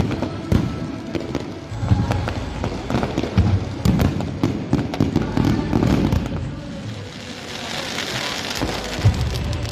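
Fireworks going off: a dense run of sharp cracks and low bangs, with a spell of hissing crackle near the end.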